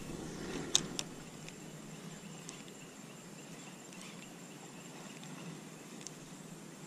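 Two sharp clicks from a Daiwa Crossfire 1000 LT spinning reel about a second in, the bail snapping shut just after a cast, then faint ticks as the line is retrieved. Under it there is a faint steady insect buzz.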